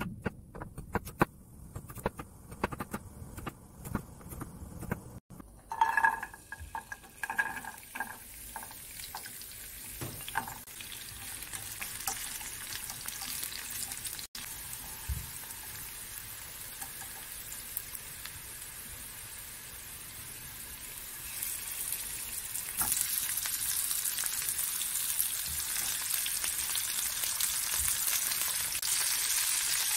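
A chef's knife slicing garlic cloves on a wooden chopping board: a quick run of sharp cuts for the first few seconds. Then garlic cloves frying in oil in a frying pan, a steady sizzle that gets louder about three-quarters through, with shrimp frying alongside by the end.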